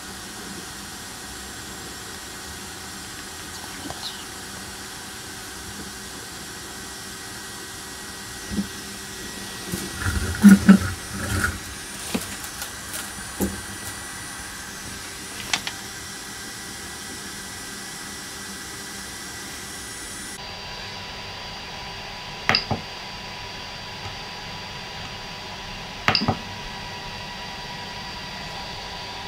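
Steady whir of the Prusa i3 MK2S 3D printer's small cooling fans while its hot end heats up. Scattered clicks and knocks of handling come around the middle, and two sharp clicks near the end as the LCD control knob is pressed.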